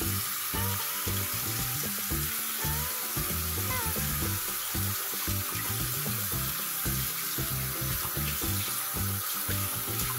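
Water running steadily from a bathroom sink tap into the basin and splashing over a puppy being washed under the stream, with background music underneath.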